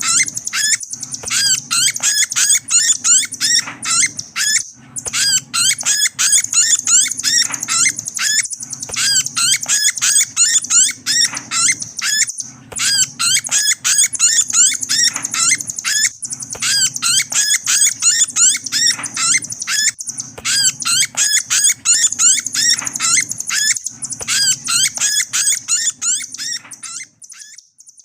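Rapid, loud, high-pitched call notes of the rambatan paruh putih (a nuthatch), played as a lure recording for trapping birds. The notes come in long fast phrases separated by brief pauses, over a low electrical hum from the playback, and cut off shortly before the end.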